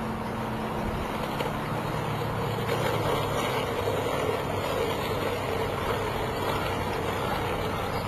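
Skateboard wheels rolling steadily over pavement, with a dog riding the board.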